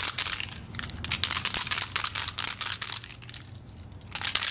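Aerosol can of 2K clear coat being shaken hard, its mixing ball rattling rapidly, with a short pause about half a second in and a longer pause near the end. The hardener has just been activated, and the shaking mixes it into the clear coat.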